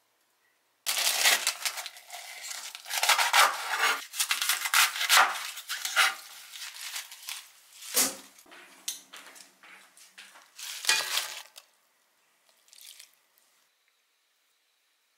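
Napa cabbage being handled for cooking: a plastic zipper bag crinkling and cabbage leaves rustling and tearing, along with kitchen handling clatter. The crackly handling is dense for the first few seconds, a sharp knock comes about eight seconds in, and the handling sounds grow fainter near the end.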